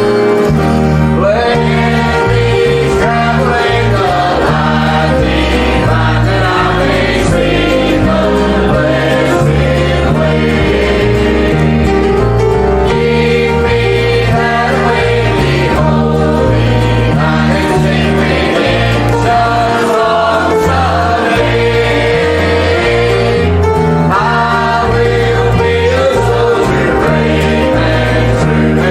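A choir singing a hymn with instrumental accompaniment, the bass line moving from note to note under sustained voices.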